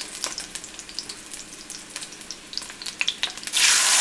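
Onion pieces frying in hot oil in a stainless steel pan, with scattered crackling pops. About three and a half seconds in, blended tomato and chile salsa is poured into the hot oil, and the pan breaks into a sudden, loud, steady sizzling hiss.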